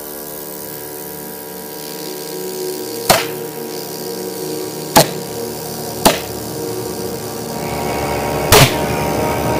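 Homemade valveless pulsejet being started on propane: four sharp, loud bangs at irregular intervals as the gas mixture ignites in the combustion chamber.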